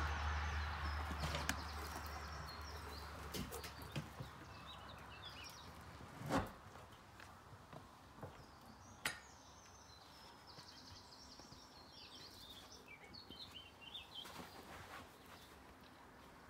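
A metal HIPRO+ flood barrier panel being fitted in a doorway: a few light knocks, a dull thump about six seconds in, and a sharp click about nine seconds in as its snap-lock handle is closed. Birds chirp now and then in the background.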